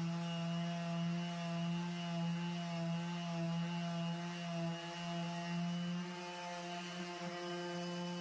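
Handheld electric sander running steadily on fiberglass gelcoat, a constant motor hum with a slight wobble in pitch about halfway through as the load on it changes.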